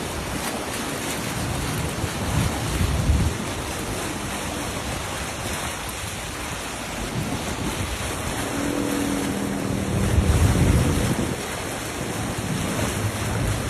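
Floodwater rushing in a flash flood, a steady roar of water, with wind buffeting the microphone in gusts.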